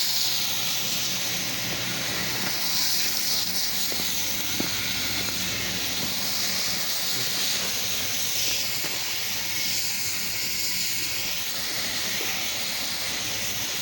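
Cleaning chemical being sprayed onto concrete: a steady hiss of spray, with a low motor hum underneath.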